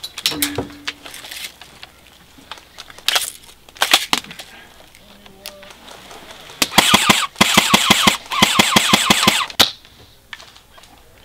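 Airsoft MAC-10 submachine gun firing full-auto bursts of BBs, a rapid rattle of clicks. Two short bursts come about three and four seconds in, then three longer bursts back to back from about two-thirds of the way through.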